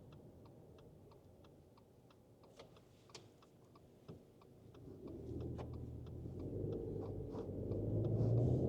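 Inside the cabin of a 2024 Subaru Forester Sport: near-quiet with a steady ticking, then about five seconds in the 2.5-litre flat-four engine and road noise swell as the car pulls away and gathers speed.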